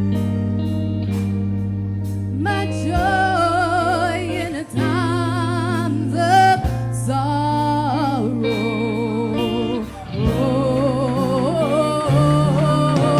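Live gospel worship music: sustained keyboard and bass chords, with a lead vocalist coming in a couple of seconds in and singing long lines with a wide vibrato.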